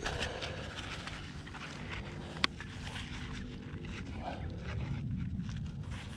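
Low rumbling and rustling handling noise, with one sharp click about two and a half seconds in.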